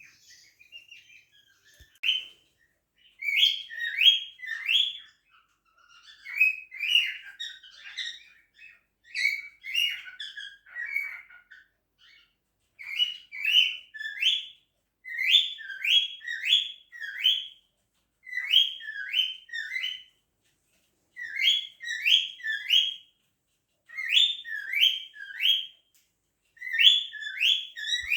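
Cockatiel whistling: short pitch-sweeping whistled notes in quick groups of three or four, repeated every couple of seconds.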